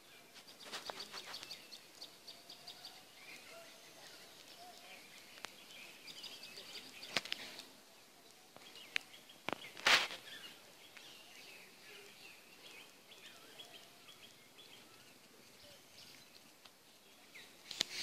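Faint birds chirping, with a rapid trill of high notes about a second in and another around six to seven seconds. A few sharp knocks, the loudest about ten seconds in.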